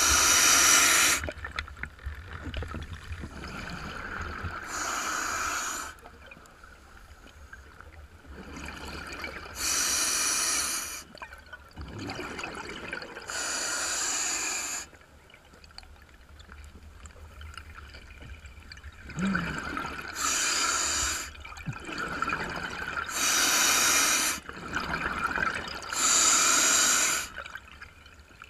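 A scuba diver breathing through a regulator. Hissing breaths alternate with bursts of exhaled bubbles, seven of them, a few seconds apart, with a longer pause midway.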